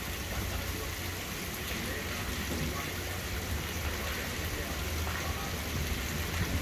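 Gusting wind from a tropical storm's outer bands buffeting the microphone: an uneven low rumble under a steady hiss, growing a little stronger near the end.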